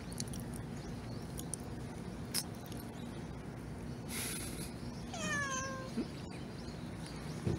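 A tabby cat meows once, a single call about a second long that falls in pitch, over a steady outdoor background hiss.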